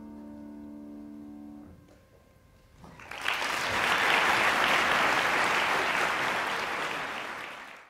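The final held chord of a choir piece with piano ends about a second and a half in. After a short hush, the audience breaks into applause about three seconds in, which is cut off abruptly near the end.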